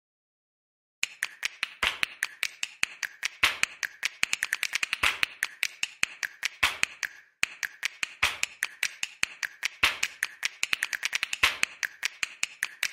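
A rapid, irregular run of sharp clicks, roughly eight a second, starting about a second in, with a brief break about midway.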